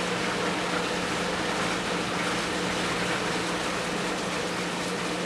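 Steady background hiss with a low, constant hum: room noise.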